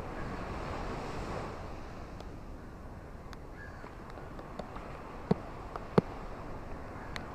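Steady wash of rain and ocean surf, a little louder in the first second and a half, with scattered sharp taps, the loudest two about five and six seconds in.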